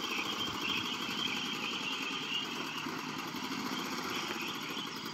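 8 hp single-cylinder snow blower engine on a homemade motorized bike, running steadily under way through a Thrush Turbo car muffler and a small-engine muffler; the exhaust is pretty quiet.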